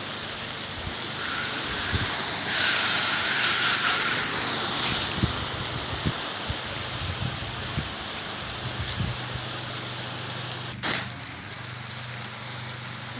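Pressure washer spraying a house-wash soap mix, a steady hiss of water over the steady hum of its engine and pump. A single sharp click sounds about 11 seconds in.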